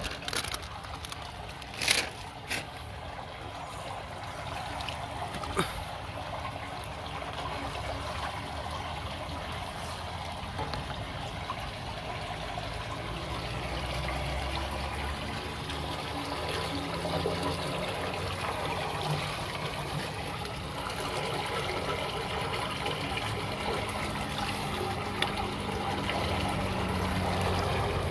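Rainwater draining through a small culvert opening under a concrete slab once a plastic bag clogging it has been pulled out: water running steadily and slowly getting louder. A few sharp knocks in the first few seconds.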